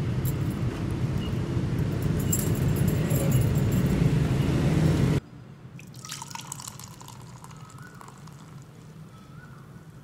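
A loud, steady low rumble of background noise cuts off abruptly about five seconds in. After it, beer is poured into a glass, splashing and foaming as the glass fills.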